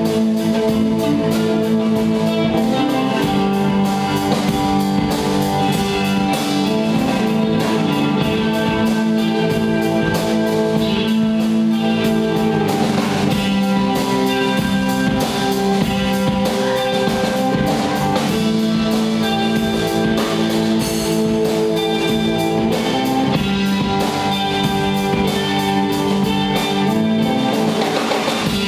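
Live band playing steampunk rock: electric guitar and bowed violin over a steady drum-kit beat.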